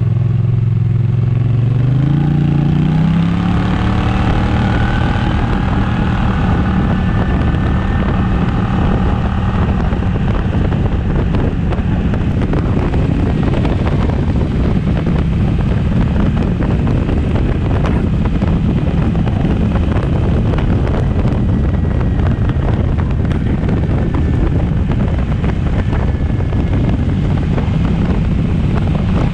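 Kymco AK550 maxi-scooter's parallel-twin engine rising in pitch as it picks up speed over the first few seconds, then holding steady at cruising speed, under heavy wind and tyre noise on a wet road.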